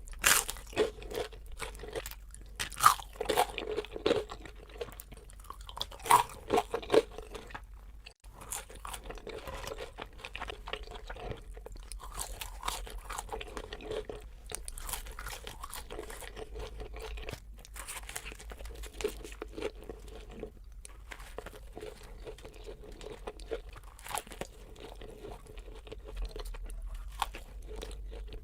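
Close-miked crunching and chewing of food, with several loud, sharp crunches in the first seven seconds, then steadier, softer chewing.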